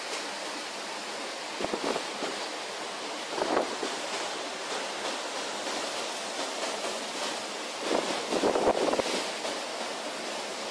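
Storm wind and rough sea running as a steady rush. Gusts buffet the microphone about two, three and a half, and eight to nine seconds in.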